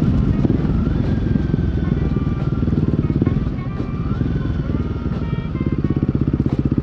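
Royal Enfield Guerrilla 450's single-cylinder engine and aftermarket Black Widow exhaust, running under way in city riding. Its beat settles into a strong, even pulse about five and a half seconds in.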